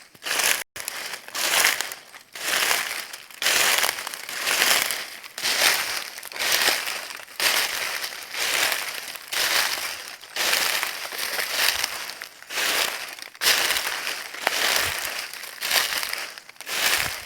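Footsteps crunching through dry leaves at a steady walking pace, about one and a half crunchy steps a second.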